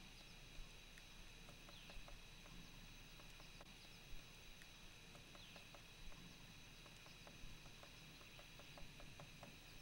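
Faint, irregular taps of a three-toed woodpecker pecking and flaking bark on a tree trunk, about two or three a second, over a steady low hiss.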